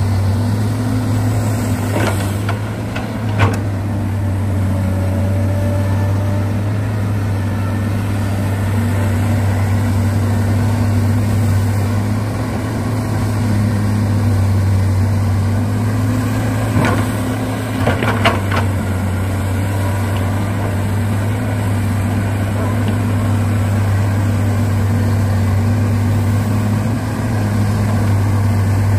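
An excavator's engine or hydraulics running with a steady, unchanging hum, broken by a few sharp knocks, twice early on and twice more a little past halfway.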